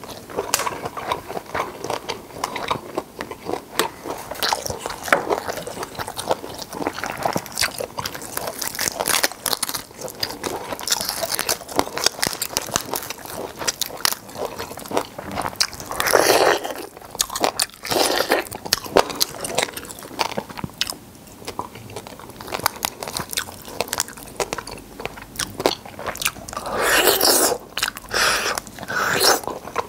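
Close-miked eating of black tiger shrimp: wet chewing, and the crackle of the shell being pulled apart and peeled by hand, with louder bites into the meat about halfway through and near the end.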